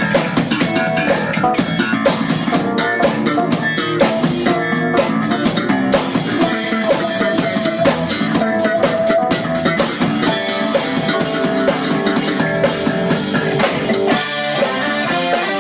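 Live fusion band playing during a soundcheck: electric guitar over a drum kit, with the drum hits busiest in the first ten seconds or so.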